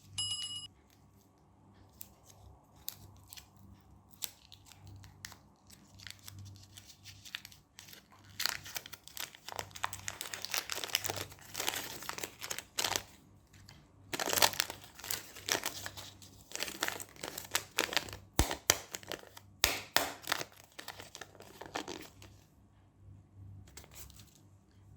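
Caramel fudge candy wrappers being crinkled and torn open: a few scattered small crackles at first, then long bursts of dense crinkling through the middle, tailing off near the end.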